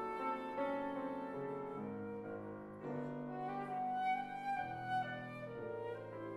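Flute playing a classical melody over harp accompaniment, the notes changing in pitch from phrase to phrase.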